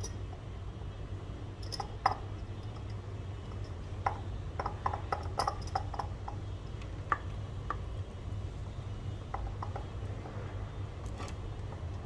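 Soft taps and light clinks of fingers and cooked rice against a glass clip-top jar as rice is pressed in by hand, scattered and busiest around the middle, over a steady low hum.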